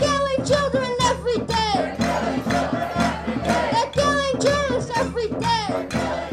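Music with singing voices, melodic lines swooping up and down over steady low held notes.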